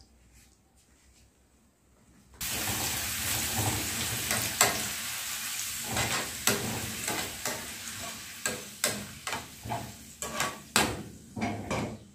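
Cut pieces of pappadam frying in hot oil in a nonstick pan: a sizzle starts suddenly a couple of seconds in and carries on, with repeated taps and scrapes of a metal strainer spoon stirring them, coming further apart toward the end.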